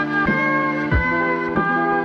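Background music: held notes over a steady beat.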